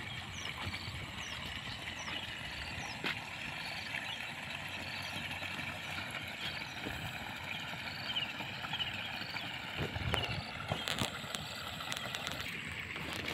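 Open-field ambience: a steady high chorus with short high chirps repeating about twice a second, over an uneven low rumble of wind on the microphone, with a few brief knocks near the end.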